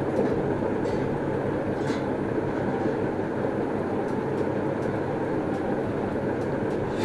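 Steady rushing noise, like a fan or air cooler running in a small room, with a few faint light clicks about one and two seconds in.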